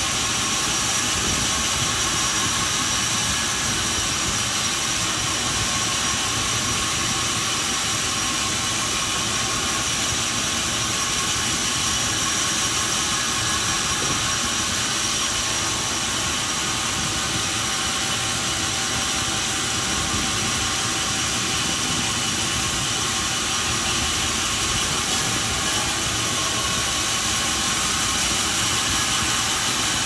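Large vertical band saw running steadily as boards are fed through it: an even, loud hiss with a few faint steady tones in it and no breaks.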